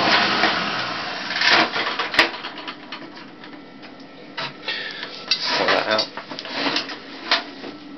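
A small 400-watt spin dryer winding down after being switched off, its steady running noise fading over the first second or so. Then a couple of sharp clicks and scattered plastic knocks and cloth rustling as its lid is opened and the spun washing is lifted out.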